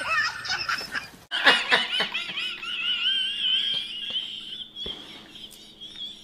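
A woman shrieking with laughter: a quick run of high laughs, then one long, high squeal held for about three seconds.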